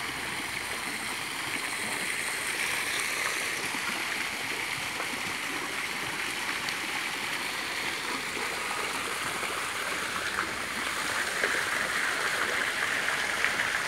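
A small fountain jet spraying and splashing steadily back into its pond.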